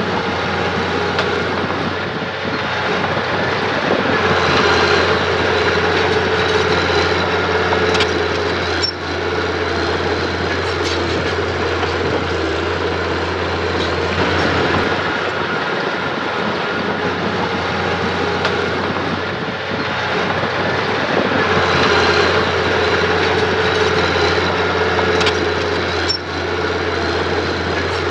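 Mitsubishi mini bulldozer's diesel engine running under load with its steel tracks clattering as it works fill dirt. The noise swells twice and eases again, with a couple of sharp clanks.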